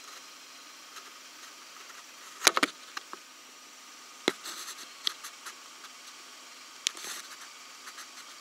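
Dry twigs snapping and brush rustling as something moves through dense undergrowth: a cluster of sharp cracks about two and a half seconds in, then single snaps and rustles near four and a half, five and seven seconds, over a faint steady hiss.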